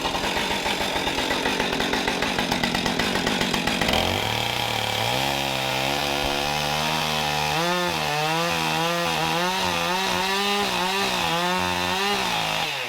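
Petrol chainsaw cutting into a wooden log for about four seconds. It then runs free of the cut, its engine note rising and wavering as the throttle is worked, and cuts off at the end.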